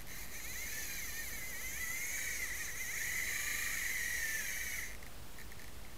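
Fly reel's click drag buzzing steadily as line runs off the spool, its pitch wavering up and down with the speed of the line; it stops about five seconds in.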